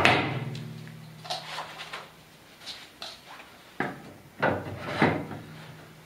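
A wheel being fitted onto a portable generator's metal axle: a loud knock with a short metallic ringing, then lighter knocks and rubs, and three sharper knocks near the end, one of them ringing again.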